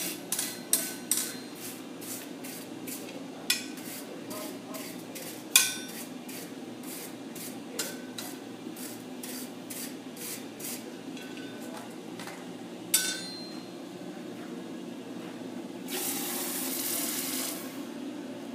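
Blacksmith's hammer striking iron on an anvil: quick ringing blows at first, then slower, scattered strikes with a couple of heavy ones, over a steady low hum. About sixteen seconds in, the iron is plunged into a wooden slack tub of water and hisses for about two seconds as it is quenched.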